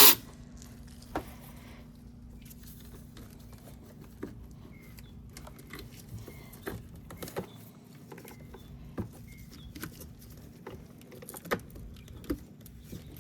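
Hand tools clinking and clicking on metal as a 10 mm battery fastener is worked loose, with a loud clank right at the start and scattered light knocks after it, over a steady low hum.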